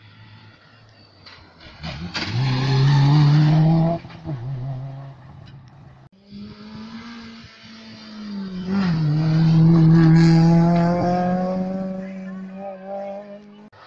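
Two rally cars pass one after the other at high revs. The first, a Subaru Impreza, goes by about two to four seconds in, and its sound drops away suddenly. The second comes up with a gear change just before nine seconds, passes around ten seconds in, and fades away.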